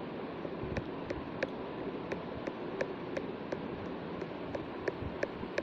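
Steady background hiss with light clicks about three times a second.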